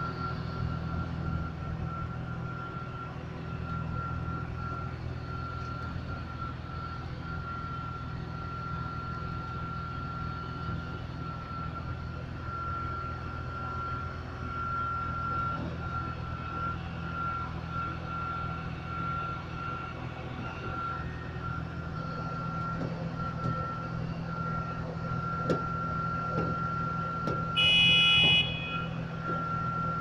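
Heavy diesel engine of construction machinery running steadily, with a constant high whine over it. A few light knocks come late, then a loud beep lasting about a second near the end.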